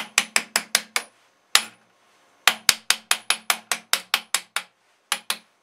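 Sharp metallic clicks at about five a second, in a quick run, a single click, a longer run and then two more, as hardware on the aluminium frame of a chainsaw milling jig is tightened with a hand tool.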